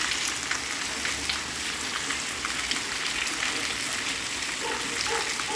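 Steady rain falling, an even dense hiss with the patter of many drops.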